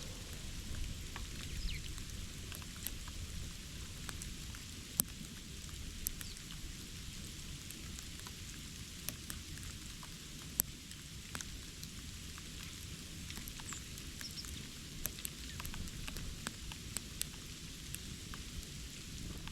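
Scattered light taps and ticks at an irregular pace over a steady low rumble, with a few faint high bird chirps.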